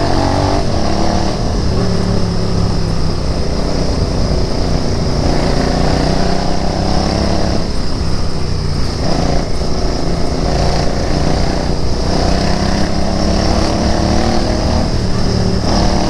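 Royal Enfield Interceptor 650's parallel-twin engine running under way, its pitch rising and dropping several times as the bike accelerates and changes gear.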